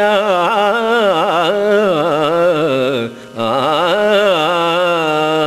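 Gamaka recitation: a man sings the closing words of a Kannada epic verse in long, ornamented phrases with constant pitch swings, pausing for breath about three seconds in, over a steady drone.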